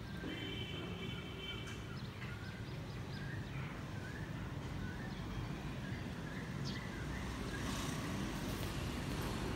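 Low, distant rumble of an Airbus A321-211's CFM56 jet engines as the airliner climbs out after takeoff, growing slightly louder toward the end.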